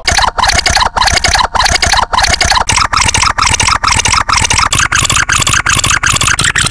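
An edited meme sound effect: one short loud clip looped over and over, the repeats coming faster and faster and rising in pitch.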